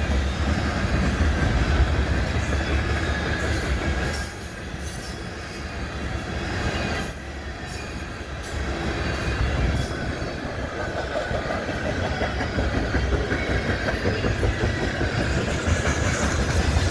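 Freight cars of a CN mixed freight (tank, grain and coil cars) rolling past: a steady rumble of steel wheels on rail with scattered clicks as the wheels cross rail joints. The sound drops a little about four seconds in and picks up again a few seconds later.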